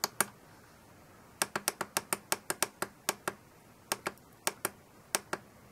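Push buttons on a FrSky Taranis radio control transmitter clicking as its menu keys are pressed: a quick run of about ten clicks, then clicks in close pairs.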